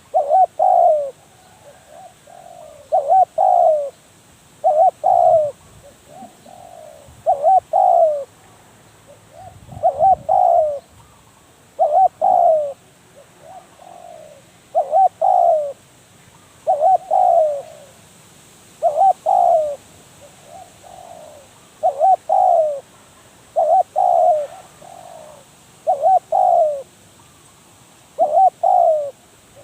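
Spotted dove cooing over and over, a loud phrase of coos about every two seconds with fainter coos between some of them.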